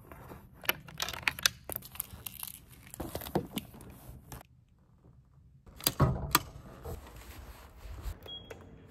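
Personal items being handled and packed into a handbag: a string of small clicks, knocks and rustles, a short quiet pause, then a couple of sharper knocks about six seconds in followed by lighter rustling.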